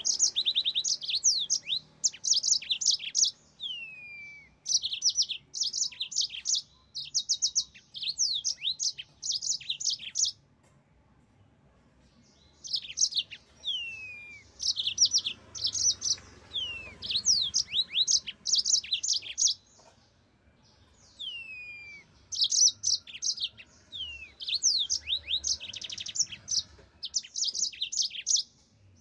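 Yellow-fronted canary singing: quick rolling trills of rapid high repeated notes mixed with short falling whistles. The song comes in bouts, broken by two pauses of about two seconds, one about a third of the way in and one about two-thirds of the way in.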